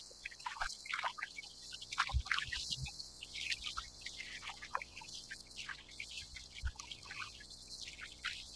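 Small waves lapping against a plastic kayak's hull in quick, irregular plinks and gurgles, with a couple of dull thumps, over a steady high-pitched chorus of cicadas from the shore.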